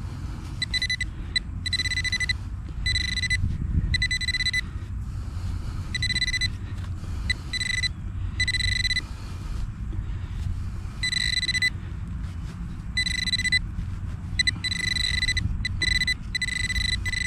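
Metal detecting pinpointer buzzing in irregular bursts, each about half a second to a second long, as it is worked over a freshly opened plug. The tone sounds each time the probe comes near the buried coin, a quarter.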